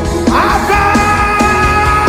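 Worship music: sustained chords over a steady bass line, with a rising slide about half a second in.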